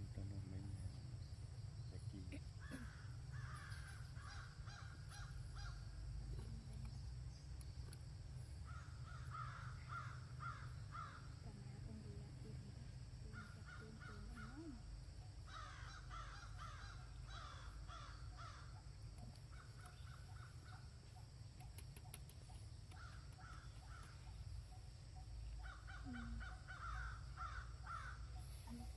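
Animal calls in short bouts of quickly repeated notes, a burst every few seconds, over a steady low rumble.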